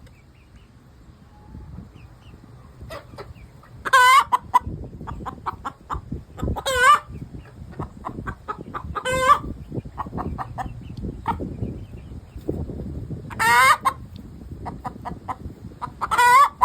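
Easter Egger hen singing her egg song just after laying: runs of quick clucks, each building to a loud, drawn-out, wavering squawk, five times over, every few seconds.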